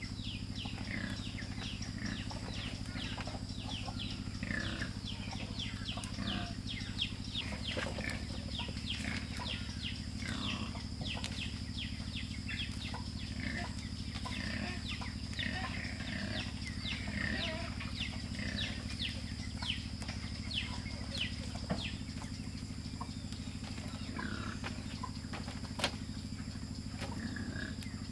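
Chickens clucking and peeping: many short, falling chirps in quick succession, thinning out over the last few seconds.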